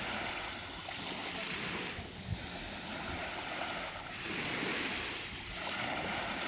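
Small waves washing up onto a sandy beach and drawing back, the hiss swelling near the start and again about two-thirds of the way through, with a low rumble of wind on the microphone.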